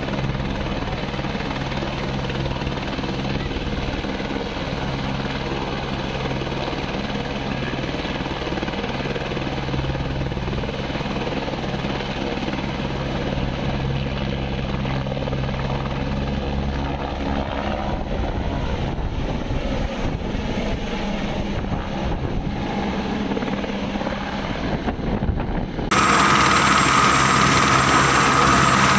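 Single-engine turbine helicopter of the AS350/H125 Ecureuil type running at ground idle, main rotor turning, giving a steady drone with a low hum. Near the end the sound steps up abruptly louder, with a high turbine whine on top.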